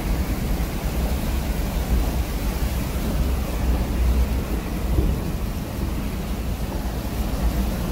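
Vehicle driving through shallow standing water inside a rock tunnel: a steady low rumble with a hiss of tyres through the water.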